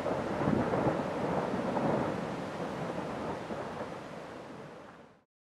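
Lava fountain erupting from a vent into a lava lake: a steady rushing, spattering noise that fades away near the end.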